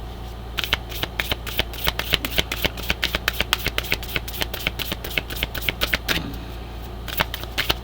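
Oracle cards being shuffled by hand, a quick run of card slaps and riffles. It starts about half a second in, breaks off briefly near six seconds, then picks up again near the end.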